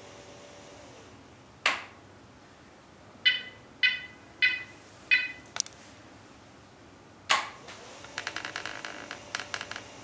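Wheelchair joystick controller beeping four times, about half a second apart, between two sharp clicks. The 24 V brushless gear motors hum faintly, falling quiet about a second in and starting again near the end with a fast rattling tick.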